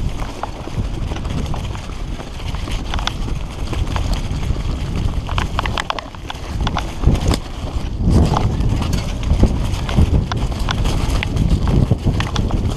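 Helmet-camera sound of a fully rigid Redline Monocog singlespeed mountain bike riding fast down a dirt forest trail: steady wind rumble on the microphone and tyre noise, with frequent clattering knocks and rattles from the unsuspended bike over the rough ground. The clatter gets busier and louder in the second half.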